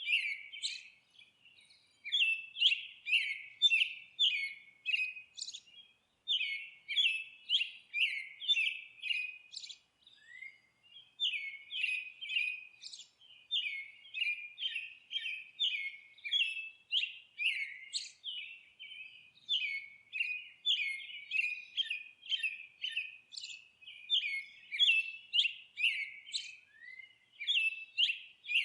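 A songbird chirping: long runs of quick, repeated falling notes with short pauses between runs.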